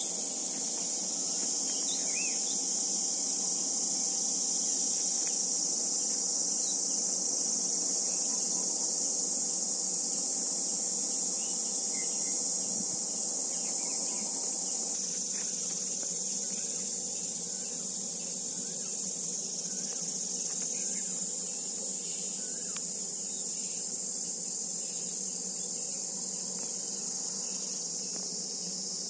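Steady, high-pitched insect chorus, a continuous shrill buzz.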